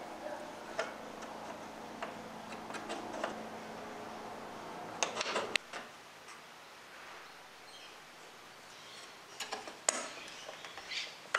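Light clicks and taps of small wooden parts and brass hinges being handled and fitted on a workbench, with a cluster of knocks about five seconds in and a few more near the end.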